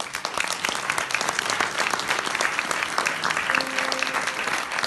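Audience applause, many hands clapping, breaking out suddenly and going on steadily.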